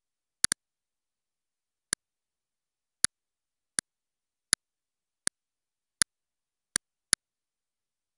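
Computer mouse button clicks: about ten sharp single clicks, including a quick double click about half a second in, with dead silence between them.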